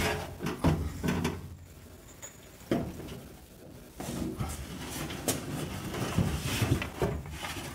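Scattered knocks and scrapes from a steel fuel tank being lowered on a jack under a car, over a steady low hum.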